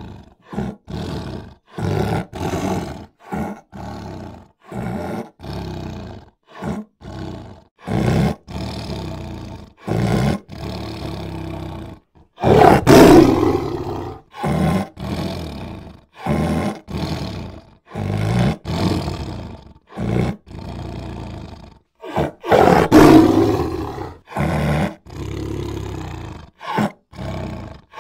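Big cats roaring and growling in short, repeated bursts, with two longer, louder roars about halfway through and again near the end.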